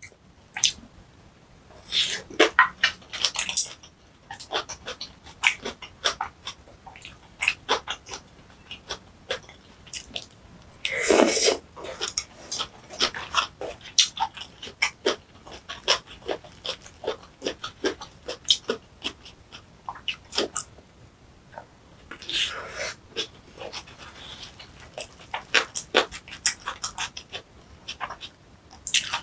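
Close-miked eating sounds of spicy kimchi bibimbap: many short wet chewing clicks and lip smacks, with a louder rushing burst about eleven seconds in.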